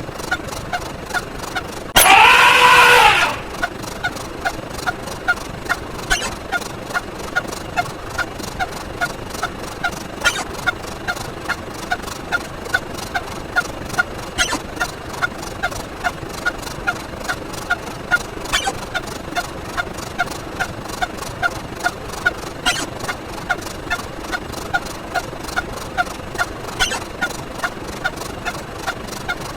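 A short, bird-call-like sound effect repeated in a fast, even series, about two a second, marking each step of a count. About two seconds in, a louder, longer sound effect with falling tones plays once over it.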